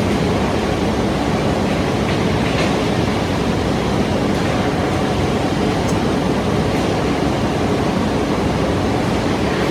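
Steady, loud industrial machinery noise of steel mill equipment running, an even rushing din with a low hum and a few faint clicks.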